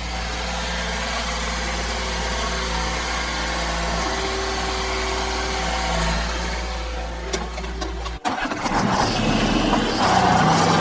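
Yanmar B22 mini excavator's diesel engine running steadily. About eight seconds in, the sound breaks off abruptly and returns louder and rougher, as the engine works harder.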